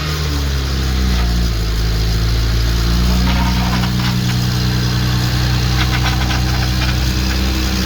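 Car engine idling steadily, with faint sharp ticks or knocks from about three seconds in. These are the bad sounds heard after the engine's rod bearings and oil pan gasket were serviced.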